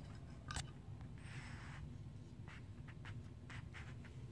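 Small Allen wrench turning the retaining screw of an AR-15 trigger guard in a stripped lower receiver: faint scattered clicks of the key and screw, with a short scrape about a second in.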